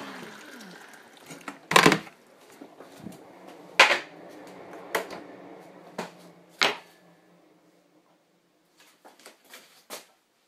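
Kitchen clatter: five sharp knocks and clinks of crockery and cupboards a second or two apart, then a quieter run of small taps and clicks near the end.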